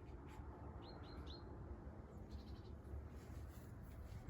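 A small bird chirping three times in quick succession about a second in, faint over a low outdoor background.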